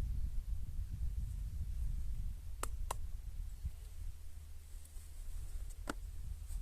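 A low steady rumble, like wind or handling on the microphone, with three short sharp clicks: two close together a little before halfway and a third near the end.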